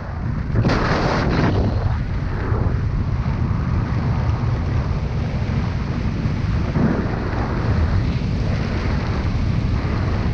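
Airflow buffeting the camera microphone during a parachute descent under canopy, a steady low rumbling rush, briefly louder and hissier about a second in.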